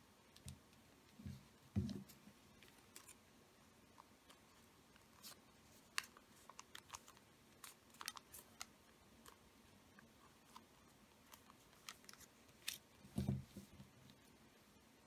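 Origami paper being folded and creased by hand: faint, scattered crisp crackles and clicks of the paper, with a few soft thumps of hands pressing it flat on the table, the loudest about two seconds in and another cluster near the end.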